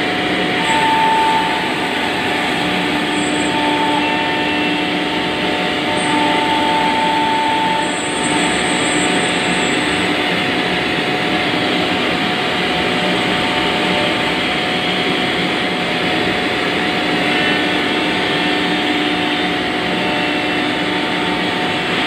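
JIYU CNC nesting router cutting a melamine-faced panel: the spindle and dust extraction make a loud, steady rushing noise, with a whine that comes and goes a few times in the first half.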